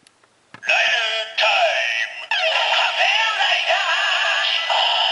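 Ziku Driver toy belt playing its electronic transformation sound through its small built-in speaker: a processed voice call over music, starting about a second in after a brief silence.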